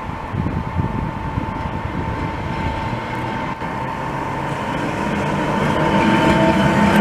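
A class 460 electric multiple unit approaching and running past, getting steadily louder over the last few seconds, with a steady high hum underneath.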